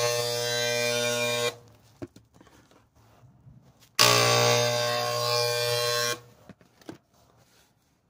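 Harbor Freight handheld electric sprayer buzzing as it sprays Fluid Film undercoating onto a vehicle's underside, in two bursts: it cuts off about a second and a half in, then runs again for about two seconds from about four seconds in.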